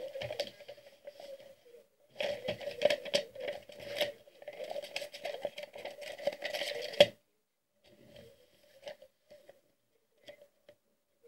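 Stiff paper being handled and folded by hand, crinkling and rustling in bursts that stop abruptly about seven seconds in, followed by a few faint taps.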